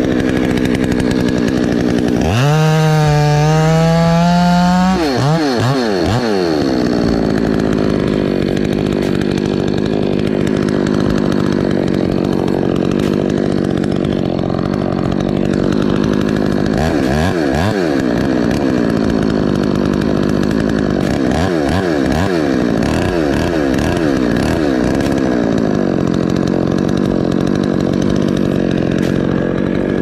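Chainsaw running, revved up sharply about two seconds in, then cutting through a coconut palm trunk, its engine pitch dipping and recovering several times as the chain bites under load.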